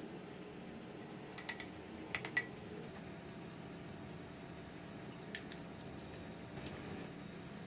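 A spoon knocking against a small glass bowl: two quick clusters of ringing clinks, about a second and a half and two seconds in, as soft food is scraped off into it. Later, faint scraping of the spoon mixing in the bowl, over a steady low hum.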